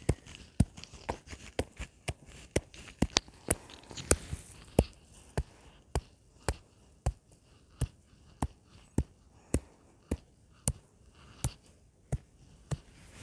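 Footsteps walking at a steady pace, each step a sharp crisp tap, a little under two a second.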